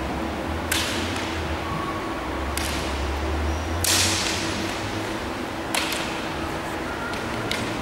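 Bamboo kendo shinai clacking against each other and against armour: about five sharp cracks spread over several seconds, the one about four seconds in loudest, over a steady low hum.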